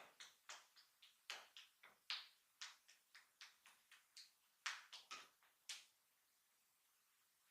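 Quick hand taps of a barber's head massage: a fast, irregular run of sharp smacks, about three a second, that stops about six seconds in.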